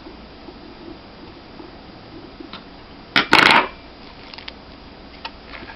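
Small metal laptop parts and tools being handled on a hard surface: one brief loud clatter about three seconds in, with a few light clicks around it.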